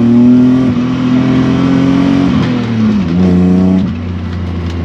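BMW M52B28 2.8-litre straight-six in an E30, breathing through a custom exhaust, being pushed on the road. The engine note climbs and holds, falls away about two to three seconds in and settles lower, then gets quieter near the end.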